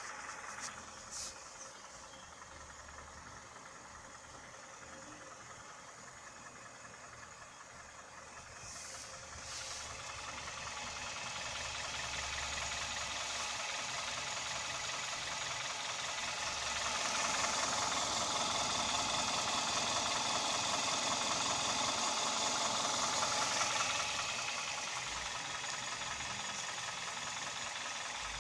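Hyundai/Kia G4KD 2.0-litre Theta II four-cylinder engine running with a knock that the owner puts down to the pistons, heard from inside the car. It grows louder from about eight seconds in, is loudest from about seventeen to twenty-four seconds, then eases back.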